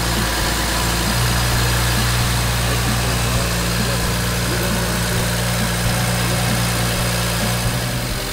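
BMW N54 twin-turbo 3.0-litre straight-six idling steadily.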